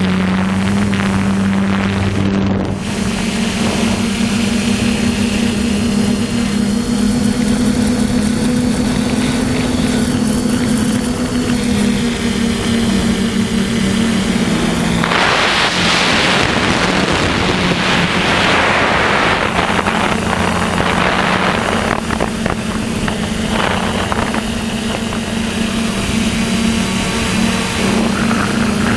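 A DJI F450 quadcopter's four electric motors and propellers hum steadily in flight, picked up by the onboard camera, the pitch shifting slightly as the motors adjust. About halfway through, wind rushes over the microphone for several seconds.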